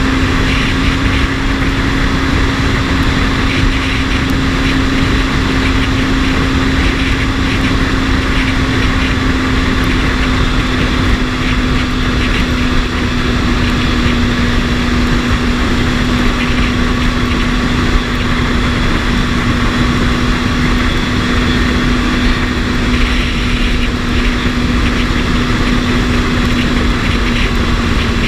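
BMW S1000RR inline-four engine running at a steady cruise, its note holding almost level and easing down very slightly, under heavy wind rush on the microphone.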